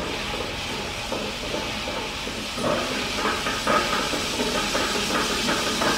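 Walk-behind concrete floor grinder running across a garage floor, sanding the surface as preparation for an epoxy coating: a steady hissing whir that grows louder and rougher about halfway through.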